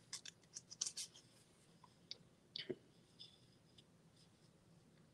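Faint handling noise: a quick run of sharp clicks and light scratchy rustles in the first second, then a few more scattered ones, over near silence.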